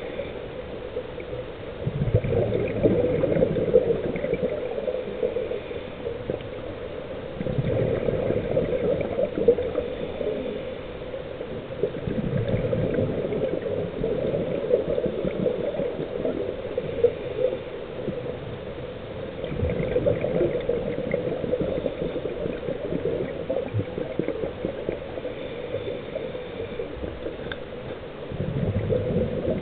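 Scuba regulator exhaust bubbling underwater: five exhalations, each a few seconds of gurgling bubbles, coming roughly every five seconds with quieter gaps between as the diver breathes in.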